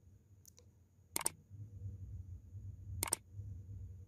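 Two crisp mouse-click sound effects about two seconds apart, each a quick double click, from a like-and-subscribe overlay animation. A faint low hum runs underneath.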